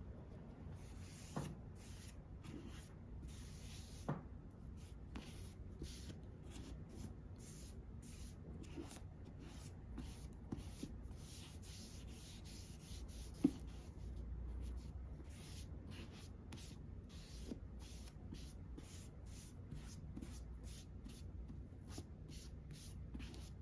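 Repeated soft rubbing strokes of makeup being applied to a mannequin, about one to two short strokes a second, with a few light clicks from handling the makeup.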